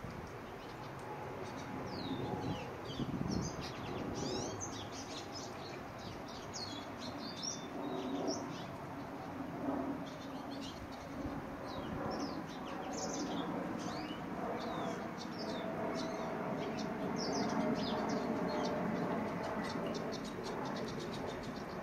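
Lesser goldfinches twittering in a rapid jumble of short, high chirps and quick rising and falling notes, busiest in the first half and thinning to faint ticks near the end, over a steady low background rumble.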